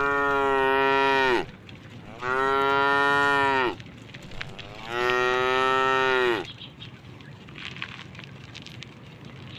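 Cow mooing three times, each a long, even call of about a second and a half whose pitch drops at the end.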